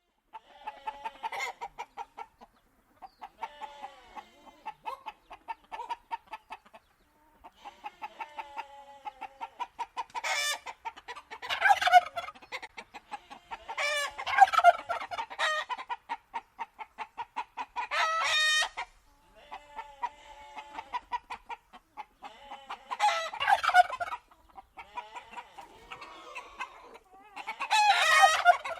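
Barnyard chickens clucking in rapid runs of short notes, with louder calls breaking in every few seconds.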